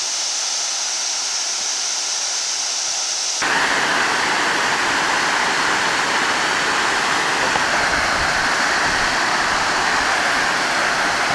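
Steady rush of a small waterfall. About three and a half seconds in the sound changes abruptly and becomes fuller and deeper.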